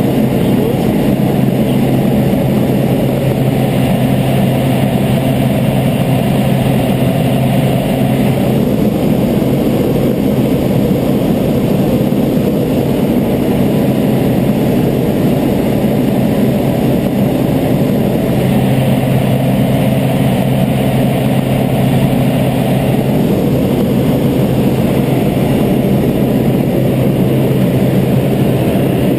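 Steady drone of a jump plane's engine and propeller, heard inside the cabin during the climb. A low hum within it fades out about nine seconds in and comes back for a few seconds around the twentieth second.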